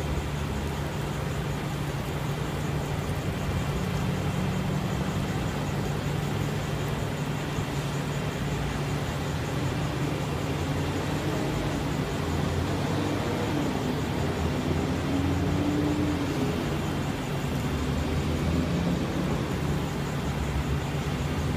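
Roll-off truck's diesel engine running steadily at low revs, its note wavering up and down a little in the second half.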